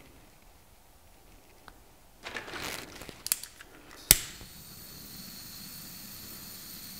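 Rustling and a few light clicks as a handheld butane torch is picked up, then one sharp click of its igniter about four seconds in, followed by the steady hiss of the torch burning as it shrinks heat-shrink tubing over a crimped wire terminal.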